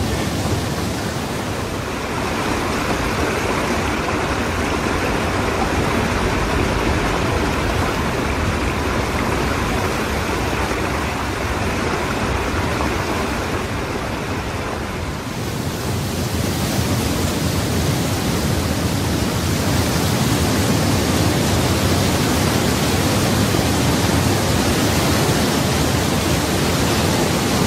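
Waterfall: a steady rush of falling water. About halfway through it dips briefly, then comes back brighter and a little louder.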